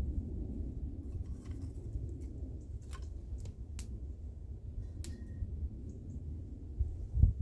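Low, steady rumble of wind buffeting the microphone, with a handful of sharp clicks about three to five seconds in and a thump near the end.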